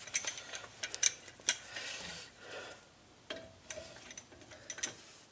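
Scattered metallic clicks and clinks of a steel C-clamp being handled and fitted against a brake caliper's piston.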